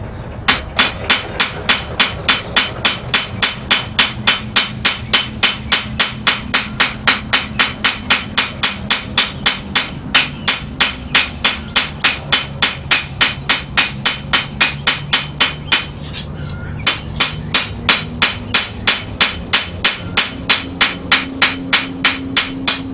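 Blacksmith's hand hammer striking sheet steel on an anvil at an even pace of about three blows a second, thinning out a trowel blade. The blows stop briefly about sixteen seconds in, then resume. A low steady hum runs beneath.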